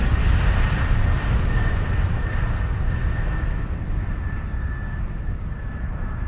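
Jet aircraft noise: a deep rumble with a hiss on top, slowly fading and growing duller, as of a jet moving away.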